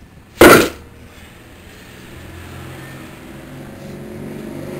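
A 60-pound cast-iron tractor wheel weight set down on a steel wheel rim: one sharp, loud clank about half a second in. After it a low steady hum slowly grows louder.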